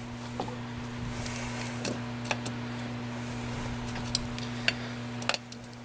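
Scattered sharp metallic clicks and taps of a hand tool working the steel cotter pin on a UTV's front axle hub nut, about six of them, over a steady low hum.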